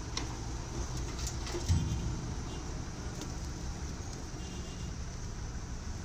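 Wheeled excavator's diesel engine running steadily, with one heavy thud about two seconds in as debris from its bucket drops into a dump truck bed.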